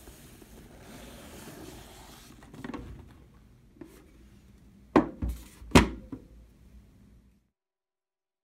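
Fabric rustling as a backpack is opened and rummaged, then a few light knocks and two loud thumps about a second apart as gear is set down on a wooden desk. The sound cuts to dead silence about seven seconds in.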